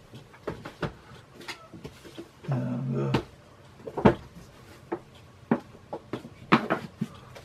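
Books being handled on a desk: a string of separate knocks and rustles as books are put down and picked up. A short voiced sound from the man, an 'mm' without words, comes about two and a half seconds in.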